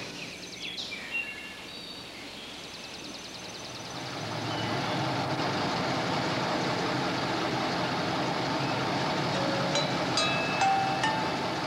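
Old dump truck's engine running, a steady noise that swells about four seconds in and then holds, with a few clicks near the end.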